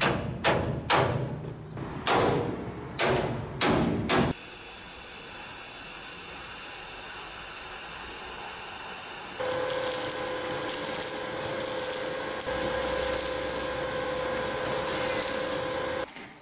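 Metalwork on a dump truck's rear gate: about eight sharp strikes on a steel bar in the first four seconds, each ringing briefly. Then the steady hiss of arc welding, which turns crackling, with a steady hum, at about nine seconds. It stops abruptly near the end.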